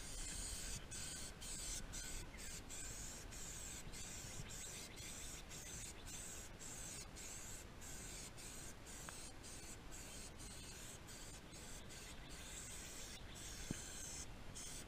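Aerosol can of plastic protectant spraying onto an off-road vehicle's black plastic panels: a steady hiss broken by many short pauses.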